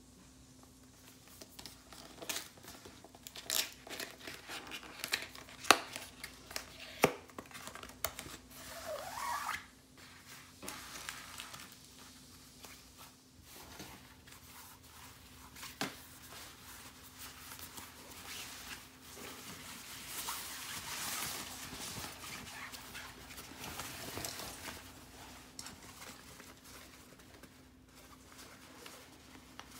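Unboxing noises: a cardboard product box and plastic mailer being handled, with crinkling, rustling and sharp taps, then a black barber apron pulled out and unfolded, giving a longer stretch of fabric rustling about two-thirds of the way through. A faint steady hum sits underneath.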